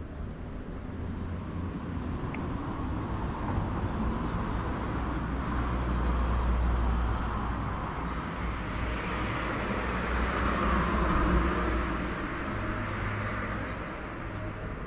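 Road vehicles passing: a low rumble and tyre hiss that swell twice, around the middle and again about three-quarters through, then fade.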